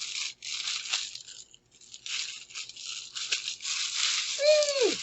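Packaging rustling and tearing in irregular bursts as parts are unpacked. Near the end, a short voice sound slides steeply down in pitch.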